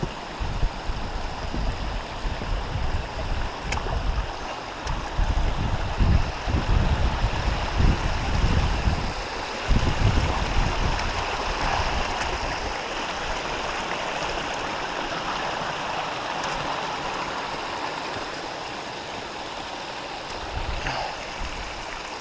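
Wind buffeting the microphone in gusts for about the first ten seconds, then settling into a steady rushing hiss.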